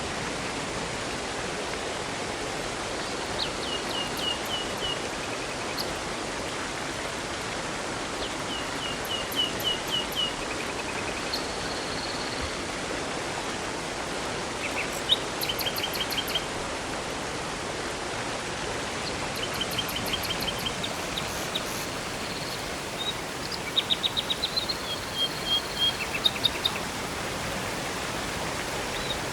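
Steady rushing of river water, with birds singing over it: several short trills of quick repeated notes and scattered chirps.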